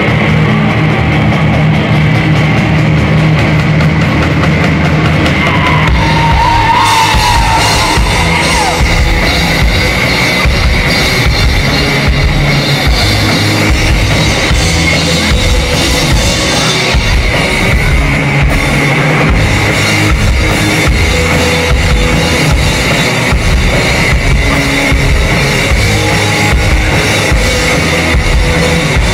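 Live rock band playing an electric-guitar, bass and drum-kit instrumental passage. About six seconds in, the full band comes in with drums and cymbals.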